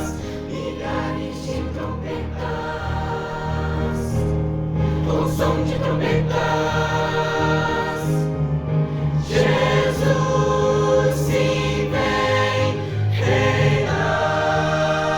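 Choir singing a gospel hymn over instrumental accompaniment, in long held chords that change every few seconds.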